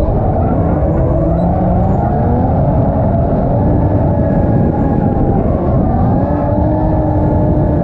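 Turbocharged 1JZ straight-six of a Lexus IS300 drift car at high revs through a tandem drift. The pitch rises and falls in long sweeps as the throttle is worked, over a steady rush of tyre and road noise.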